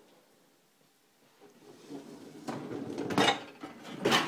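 A Beko dishwasher's rack rolling out on its rails with a rattle, followed by two sharp clanks near the end.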